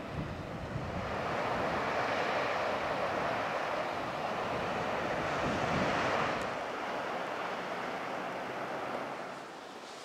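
Sea surf washing in over a sandy beach: a steady rush of water that swells about a second in and eases off near the end, with wind rumbling on the microphone.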